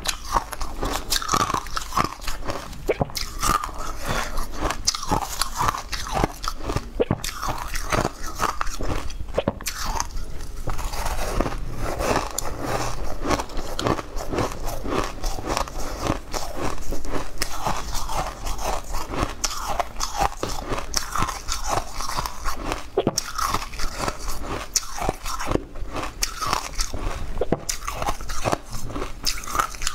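Close-miked crunching and chewing of mouthfuls of crushed ice, crisp crunches following one another without pause.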